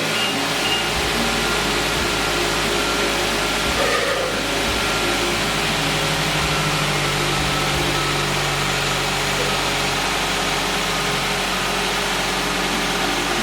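2014 Nissan Rogue's 2.5-litre four-cylinder engine idling steadily, run briefly after an oil change to circulate the fresh oil before the level is checked.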